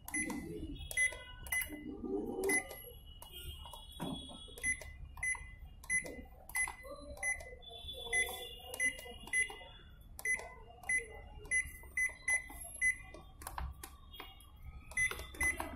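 Microwave oven running a heating test with a low steady hum, while short, high electronic beeps repeat about twice a second.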